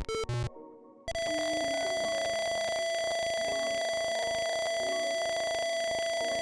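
Simulated piezo buzzer playing a quick square-wave melody that ends about half a second in. About a second in it sounds one steady, high electronic tone that holds unchanged. The held tone comes as repeated wrong passwords lock out the keypad.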